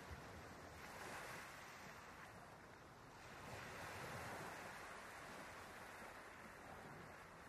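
Faint, steady rushing noise, swelling a little about a second in and again around four seconds in.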